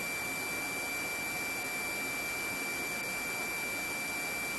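Steady high-pitched tone over an even hiss of static from the open police radio or intercom audio feed, with no voice on it.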